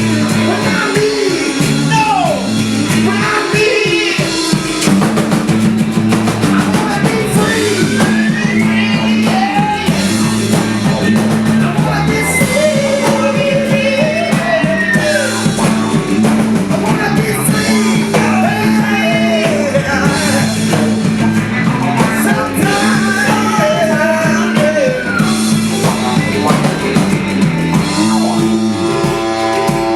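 Live band playing old-school American roots rock and roll: drum kit, a steady walking bass line and electric guitar, with singing over it.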